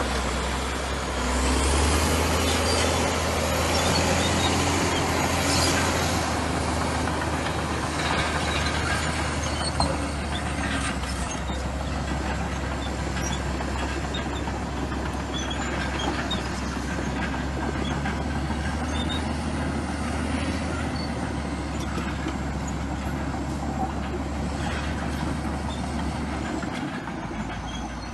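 Komatsu bulldozer's diesel engine running steadily under load, with scattered clicks and clanks.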